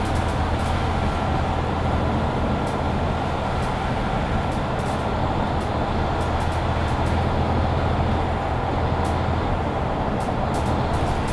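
Mercedes-Benz Citaro C2 Hybrid city bus under way, its diesel engine running steadily with a low hum over road noise. Faint clicks and rattles sound now and then.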